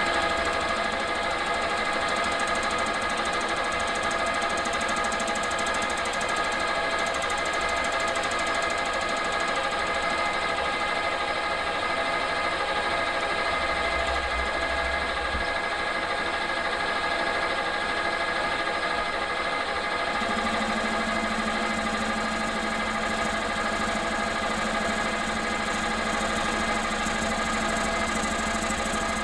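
Metal lathe running steadily while a cutting tool turns down the diameter of a cast iron cylinder blank, with a steady motor and gear whine over a rough rumble. A lower hum joins about two-thirds of the way through.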